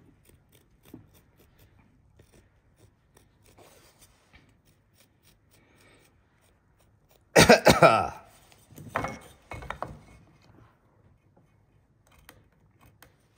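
Faint scratches and light ticks of hand tools worked on timber, broken about seven seconds in by a man's loud cough, followed by two shorter throat-clearing sounds.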